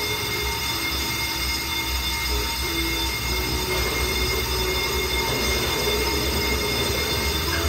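Brake lathe turning a brake disc, its cutting tool shaving the spinning metal with a steady high whine over a low motor hum. The disc is being resurfaced because heat from braking has warped it.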